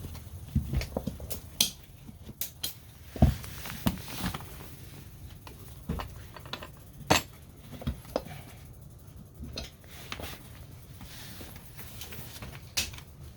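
Metal hand tools and scooter wheel parts clinking and knocking as they are handled, with irregular sharp clicks, the loudest about three and seven seconds in.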